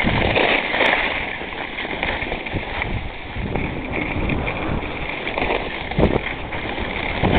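Skis sliding and scraping over packed snow, with wind rushing over the microphone as the skier moves downhill.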